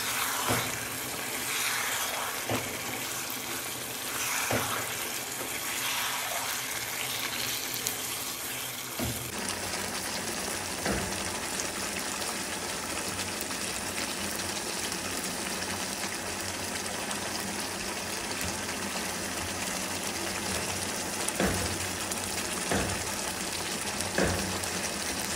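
Marinated chicken sizzling as it is fried down in oil and spices in a pan, with a spatula knocking against the pan now and then.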